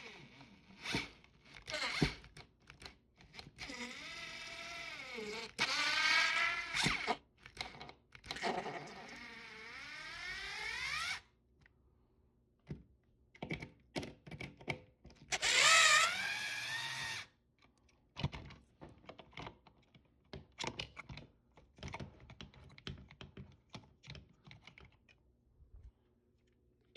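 A small power tool's motor whining in four bursts of a second or two, its pitch sliding up and down, between scattered clicks and knocks of handling. It is most likely driving out the alarm's mounting-bracket screws.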